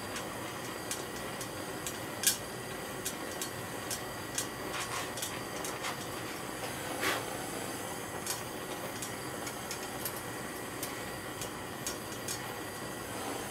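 Handheld gas torch hissing steadily as it heats solder joints on a brass tracker bar, with scattered crackles and pops from wooden toothpicks burning beneath it. The sharpest crack comes about two seconds in.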